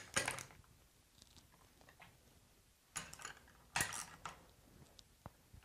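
Socket ratchet clicking in a few short spells with quiet gaps between, as 10 mm bolts are given a last quarter turn to clamp an aluminum chill plate down onto a Curtis controller over a bead of silicone.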